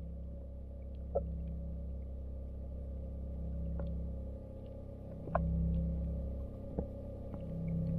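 Muffled underwater sound picked up by a submerged camera: a steady low rumble and hum, with a few sharp clicks scattered through.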